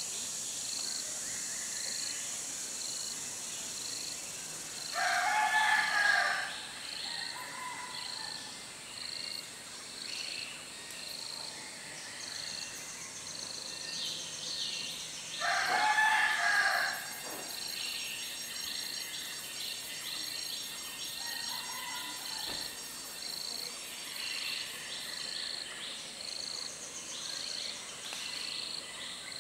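A rooster crowing twice, about ten seconds apart, each crow lasting about a second and a half, over a steady insect chorus with an even, high pulsing beat.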